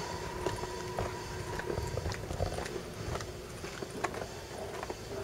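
Footsteps of a person walking outdoors, heard as irregular crunching clicks over a low rumble. A faint steady tone dies away about a second in.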